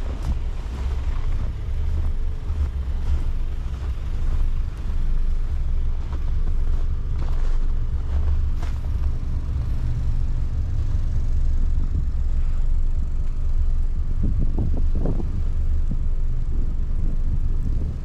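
Wind buffeting the microphone in a steady low rumble, over the hum of cars idling in stopped traffic on a snow-covered road.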